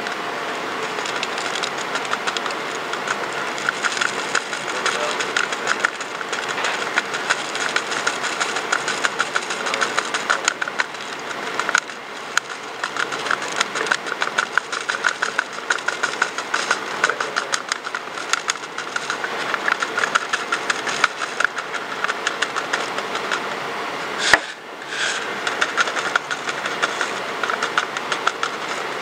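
Plastic weighing dish flexed and tapped to shake powder into a glass bottle: rapid, irregular ticking and crinkling, with one sharp louder click about five seconds before the end, over a steady background hum.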